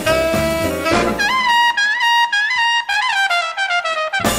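Jazz background music. About a second in, the band drops out and a lone brass horn plays a phrase with pitch bends, falling toward its end, before the full band comes back in near the end.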